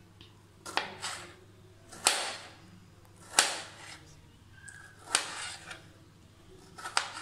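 Kitchen knife cutting through a tomato, each cut ending in a sharp click as the blade strikes the plate beneath. There are five cuts, about one to two seconds apart.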